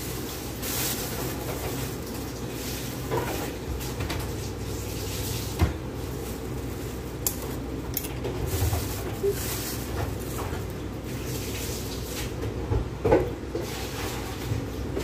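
Kangkong (water spinach) being stripped by hand into a plastic basin: scattered small clicks and knocks, with two louder knocks about five and a half seconds in and near the end, over a steady low hum.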